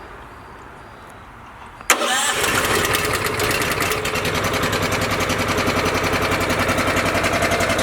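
Honda GX390 13 hp single-cylinder gasoline engine on an air compressor, cold-started with the choke on. It catches at once about two seconds in, then runs steadily at idle.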